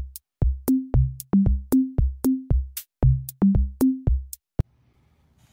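Dancing cactus toy playing an electronic tune: a drum-machine beat of short, punchy bass notes, stopping about four and a half seconds in.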